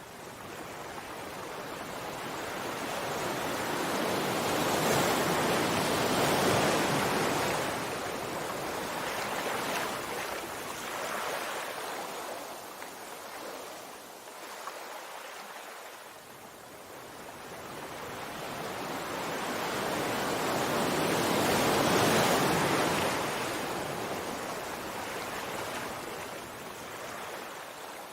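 Sea waves washing onto a shore. The surf noise swells slowly to a peak about six seconds in, ebbs away, then builds again to a second peak a little past twenty seconds.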